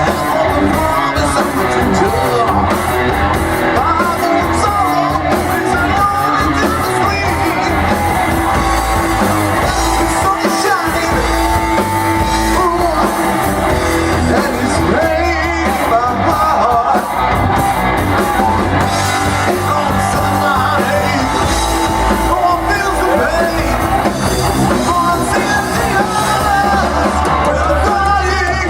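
Rock band playing live with a lead singer, electric guitar, bass and drums, loud and steady.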